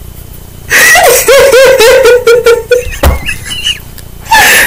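A woman laughing hard: a long run of laughs starting about a second in, a single thump partway through, then a louder burst of laughter near the end.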